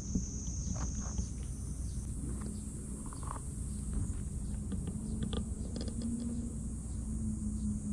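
Outdoor ambience: insects chirring in a steady high band, over a steady low hum, with scattered soft ticks and rustles.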